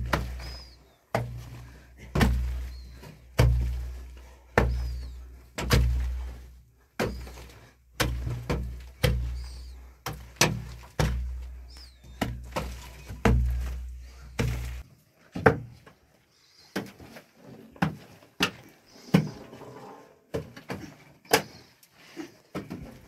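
Repeated heavy thuds, about one a second, each with a deep low boom that dies away, typical of a tool striking hard earth or a heavy material over and over. From about 15 seconds in the blows give way to lighter, sharper knocks and scrapes.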